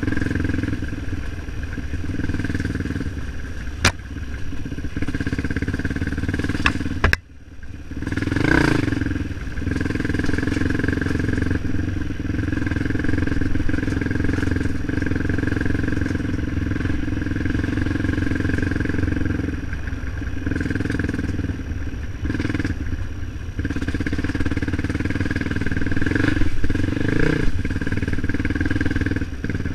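Motorcycle engine running steadily under way, with small rises and falls later on. A sharp click comes about four seconds in, and another just before a brief drop-out a few seconds later.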